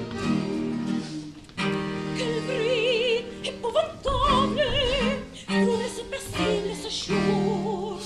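A baroque ensemble of strings with continuo plays sustained chords. About two seconds in, a soprano enters singing French baroque opera with wide vibrato, in short phrases punctuated by orchestral chords.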